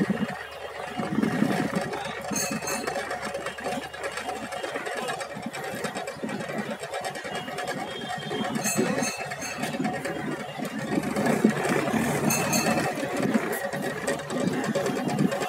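A riverboat's engine running steadily, with brief high ticking rattles about two seconds in, near the middle and again later.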